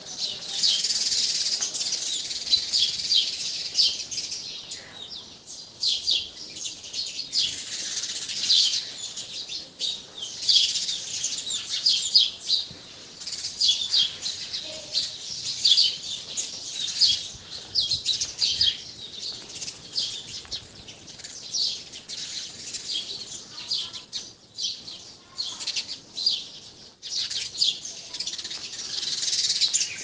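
Pencil scratching on paper in quick, short drawing and hatching strokes: a dense, high-pitched scratchy hiss with brief pauses between runs of strokes.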